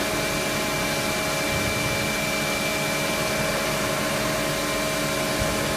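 Soraluce TL 25 CNC bed-type milling machine running: a steady mechanical hum and whine, several fixed tones over an even rush of noise, with no change in speed.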